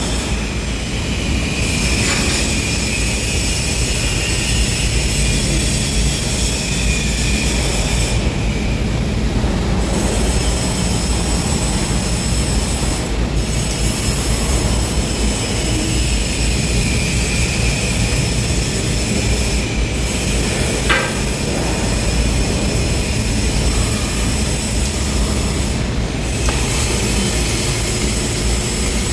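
Steady loud workshop noise from a steel fabrication shop: a dense rumble with several high-pitched whines running through it. Flux-cored arc welding starts near the end.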